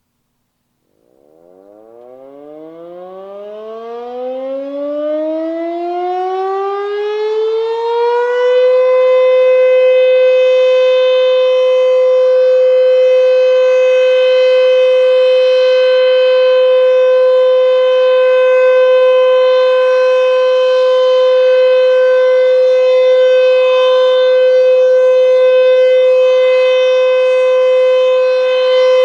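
Sentry 14V outdoor warning siren winding up from a standstill, its pitch rising and its sound growing louder for about eight seconds, then holding one steady tone.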